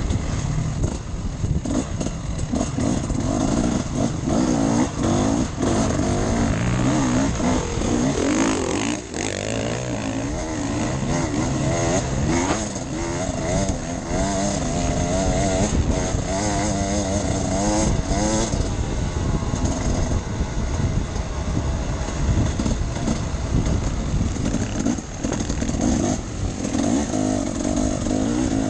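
Enduro motorcycle engine ridden off-road, its pitch rising and falling again and again as the throttle is opened and closed, over a steady rushing noise.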